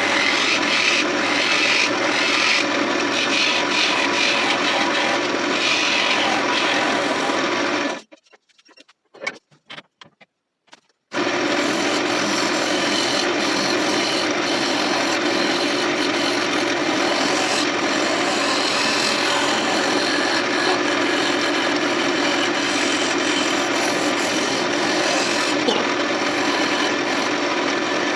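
Wood lathe spinning a mulberry blank while a turning tool cuts it, a steady rough scraping hiss of wood being shaved away. It breaks off abruptly about eight seconds in for some three seconds of near silence, then resumes just as steadily.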